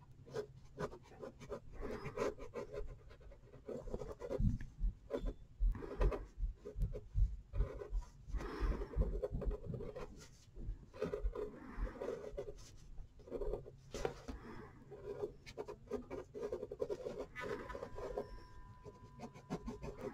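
Coloured pencil scratching on paper in quick, irregular back-and-forth strokes as a drawing is coloured in.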